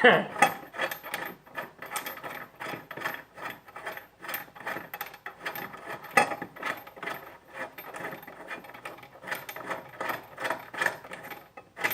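Hand tools and metal parts being handled: a fast, irregular run of clicks with some scraping and rubbing.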